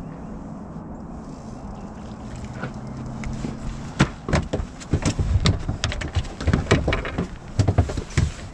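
Steady low hum of a bow-mounted trolling motor, then from about four seconds in a quick run of sharp splashes and knocks as a hooked bass thrashes at the surface and is brought aboard the bass boat.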